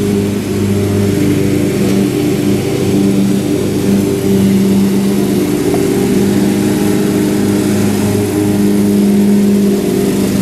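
An engine running steadily, a continuous hum whose loudness and pitch barely change.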